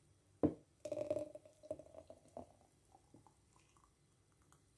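A straw pushed into a thick smoothie in a glass jar: a single knock against the glass about half a second in, then a short run of soft squelching and faint squeaking as the straw works down through the smoothie, followed by a few faint ticks.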